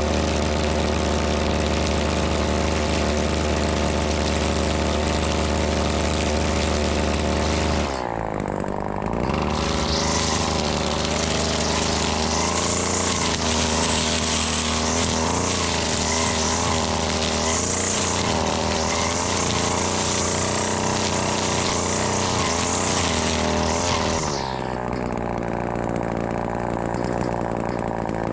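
Gas string trimmer engine running steadily. About eight seconds in its note changes, and for some fifteen seconds it runs unevenly with a high hiss added as the line cuts. Near the end it settles to a lower, steady note.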